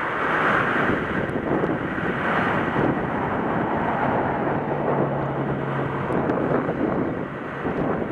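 Steady wind buffeting the microphone over the engine of the tow vehicle running under load as it pulls a pickup truck slowly up a dirt slope.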